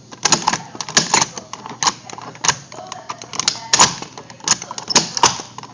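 Walk-in freezer door's inside release pin and latch being worked over and over: a run of sharp, irregular metallic clicks and clacks, a few a second, without the door opening. The latch is busted, so the safety release no longer lets someone out.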